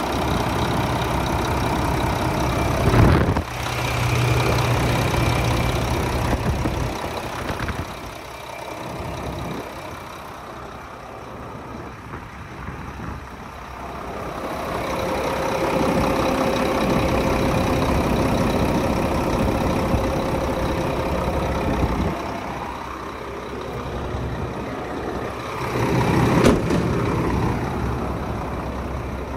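Mack MP7 10.8-litre straight-six diesel idling steadily, growing louder and softer in turn. A sharp knock sounds about three seconds in and again near the end.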